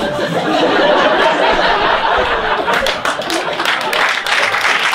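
Audience laughing in a comedy club.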